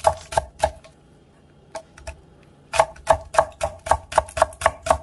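Chef's knife slicing a green onion on an end-grain wooden cutting board: sharp knocks of the blade on the board, a few at first, a pause of about two seconds, then a quick even run of about five cuts a second.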